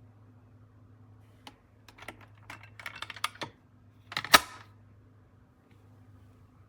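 A series of light clicks and clacks, like small hard parts being handled, with one louder clack about four seconds in, over a faint steady hum.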